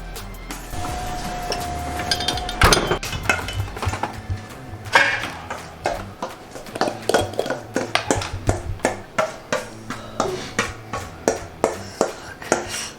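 Kitchen utensils knocking and clinking against a bowl and dishes in a quick, irregular series of sharp taps, with a brief steady tone near the start.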